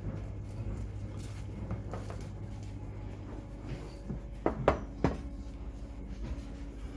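Kitchen handling noises while filled filo pastry sheets are rolled up: light scattered clicks and rustles, then a quick run of three sharp knocks with a short ring about four and a half to five seconds in, over a steady low hum.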